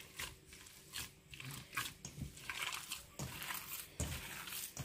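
Hands mixing and squeezing raw seekh kebab mince, bound with gram flour, chopped onion and egg, in a bowl: a fairly faint run of irregular short squishing strokes.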